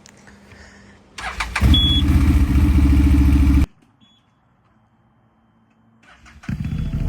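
ATV engine cranked on the starter about a second in, catching and running loud and steady for about two seconds before cutting off abruptly; a short beep sounds as it catches. After a few seconds of near silence, a loud sound swells up near the end.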